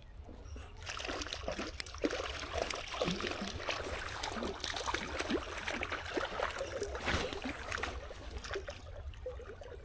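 Creek water splashing and trickling: an irregular patter of small splashes that starts about a second in.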